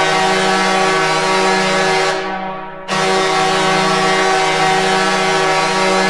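Detroit Red Wings goal horn sounding in two long, steady blasts: the first fades out about two seconds in, and the second starts under a second later and holds.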